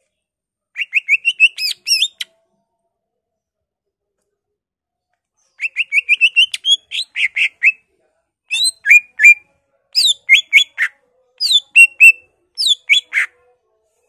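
Male greater green leafbird (cucak ijo) singing in loud bursts of rapid, sharp notes. A short run comes about a second in, a longer one from about five and a half seconds, and then a string of quick falling notes that ends just before the close.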